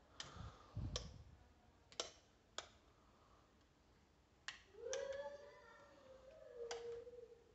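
Wall switches clicking as room lights are switched off, about seven sharp clicks spaced unevenly. About five seconds in, a voice briefly holds a faint wavering note.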